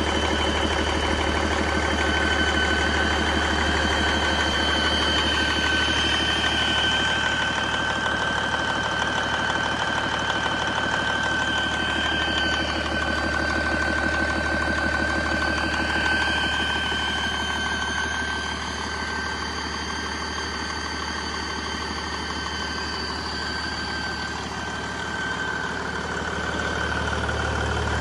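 Detroit Diesel DD15 14.8-litre inline-six diesel engine idling steadily, with a steady high whine over its running. It is a little quieter for several seconds after the middle.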